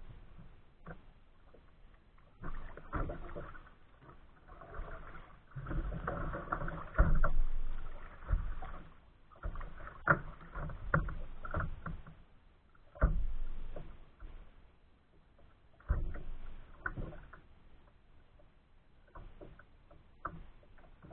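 Kayak moving through choppy open water: water splashing and slapping against the hull in surges every few seconds, with sharp knocks in between.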